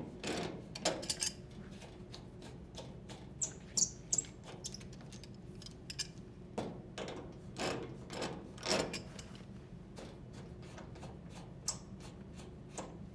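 Water supply hoses being unthreaded by hand from a washer's inlet valves: scattered rubbing and clicking of the hose couplings, with a few brief high squeaks.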